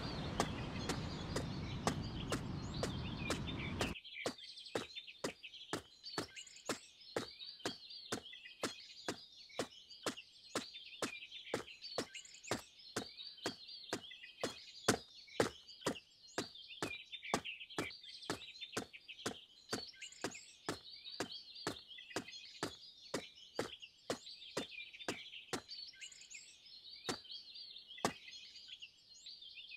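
Footstep sound effects: sharp, regular knocks at about two a second, with birds chirping over them. A steady rushing noise fills the first few seconds and cuts off suddenly. The footsteps stop near the end while the birdsong carries on.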